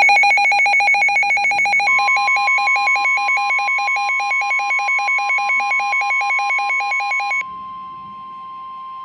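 Emergency Alert System warning tones for a severe thunderstorm warning. A rapid beeping alarm flips quickly between a lower and a higher pitch. About two seconds in, a steady single warning tone joins it. The beeping stops about seven seconds in and the steady tone carries on alone, somewhat quieter.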